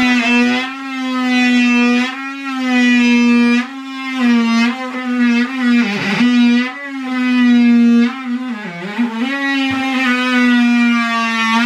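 Background music: a long held note that dips briefly in pitch about six seconds in and again near nine seconds.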